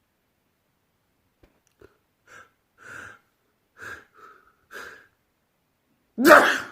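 A man's sneeze build-up: five short, breathy gasping inhales about half a second to a second apart, then one loud, sudden sneeze near the end.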